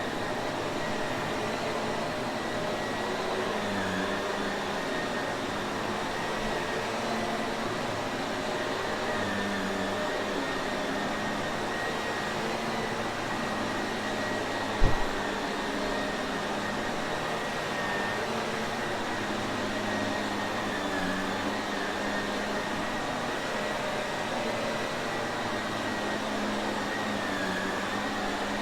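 Shark Navigator upright vacuum cleaner running steadily: a constant rush of air with a high motor whine, its pitch wavering slightly every few seconds. A single brief thump about halfway through.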